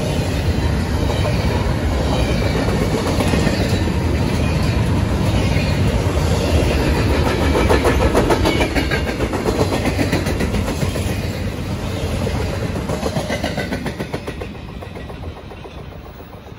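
Empty intermodal well cars and flatcars of a freight train rolling past quickly, steel wheels clacking in a rapid run over the rail joints. The sound fades away near the end as the last car goes by.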